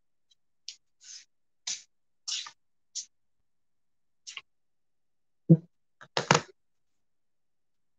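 Handling noise: a string of short scratchy clicks and rustles, then a sharp knock about five and a half seconds in and a louder clatter just after.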